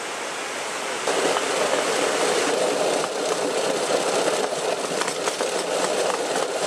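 A steady hiss, then about a second in a louder steady running sound of the motorized railbike's small gasoline engine and its wheels rolling on the rails, with faint scattered clicks.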